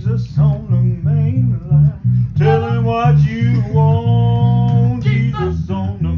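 Bass guitar plucked in a repeating pattern of low notes, with a voice singing along over it.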